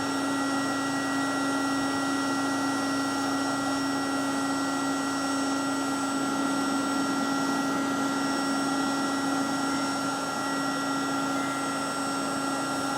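Looft Lighter electric charcoal lighter running, its fan blowing superheated air out of the tip in a steady hiss over a steady motor hum, igniting the charcoal it is pointed at.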